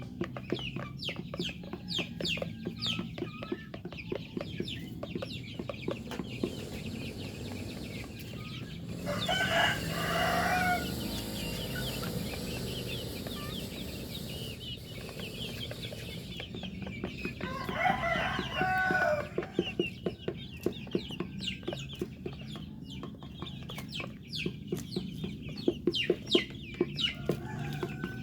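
Chickens clucking while a rooster crows twice, each crow about two seconds long, the first about a third of the way in and the second about two thirds in. A quick patter of small ticks runs underneath throughout.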